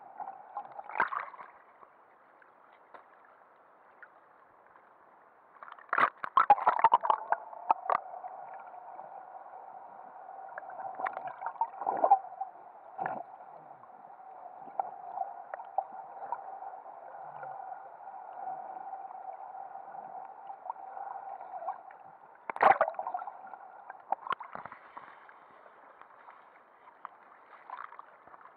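Muffled underwater sound picked up through an action camera's waterproof housing: a steady hum with bursts of bubbling, splashing and knocks, loudest about six seconds in, around twelve seconds and near twenty-three seconds.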